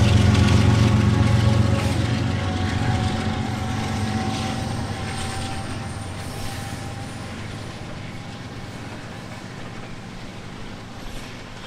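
Diesel locomotive engine running as it moves away, its sound fading steadily.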